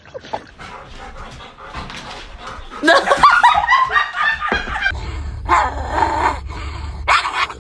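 Several dogs yipping, whining and barking in rough play. The loudest stretch is a run of high, wavering yelps about three seconds in, followed by shorter bursts.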